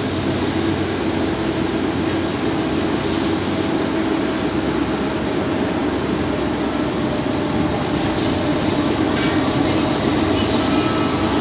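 Union Pacific diesel locomotives at the head of a loaded coal train approaching, a steady engine drone growing slightly louder near the end, under an even hiss.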